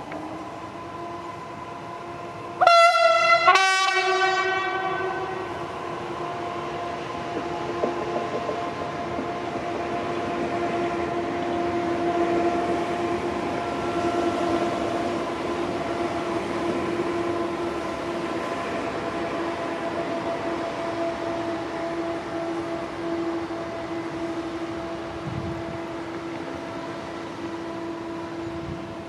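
PKP class SM42 diesel-electric shunting locomotive giving two short blasts of its horn, one right after the other, about three seconds in. Then its diesel engine runs with a steady droning hum as it rolls slowly closer.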